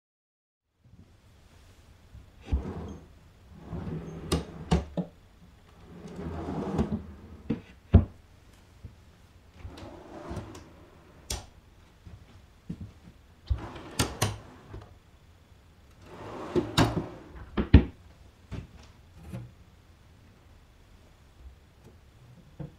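Wooden drawers of a plywood router-table cabinet sliding open and shut on metal drawer runners several times, each run ending in sharp knocks as the drawer stops or closes.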